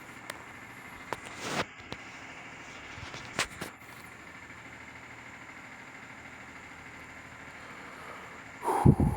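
Scattered metallic clinks and knocks of tools at work on a car's engine bay, over a steady mechanical hum, with a louder cluster of knocks near the end.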